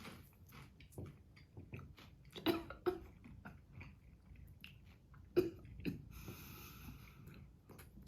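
A person chewing food with soft, irregular wet mouth clicks and smacks. There is a short hiss about six seconds in.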